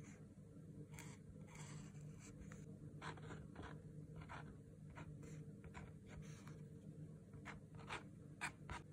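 Fine-tipped marker pen scratching short strokes across a painted acrylic canvas: a faint, irregular series of brief scratches, the sharpest near the end.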